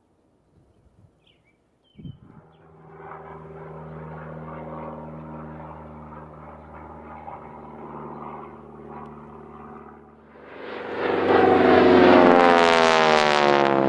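Single-engine propeller light aircraft flying overhead, a steady engine and propeller drone. Near the end a much louder airplane sweeps past, its pitch falling.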